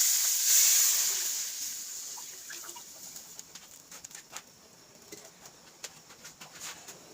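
A loud sizzle of food in a hot pan, dying down over about three seconds, followed by faint ticks and a few chicken clucks in the background.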